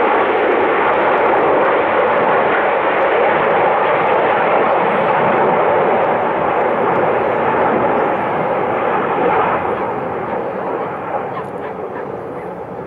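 Formation of BAE Hawk T1 jets flying past, their turbofan engines making a loud, steady jet noise that fades away over the last few seconds.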